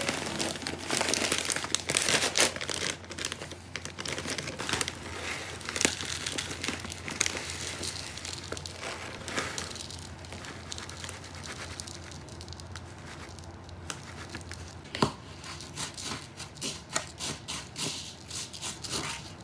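Crinkling and rustling with many scattered clicks and taps, busiest in the first few seconds, and one sharper knock about three-quarters of the way through.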